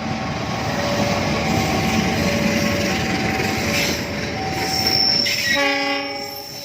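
A train running past with a loud rumble, while a level-crossing warning bell alternates two tones about every three-quarters of a second. A high wheel squeal starts about five seconds in, and a short train horn blast sounds soon after.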